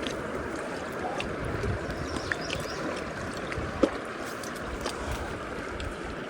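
The Deschutes River's current rushing along the bank as a steady, even wash of water, with a single light knock about four seconds in.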